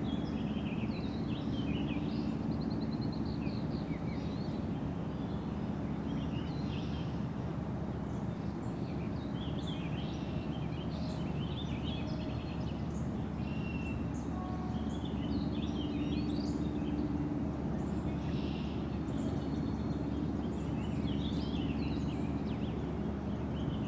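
Several birds singing and chirping, short calls and trills scattered all through, over a steady low rumble.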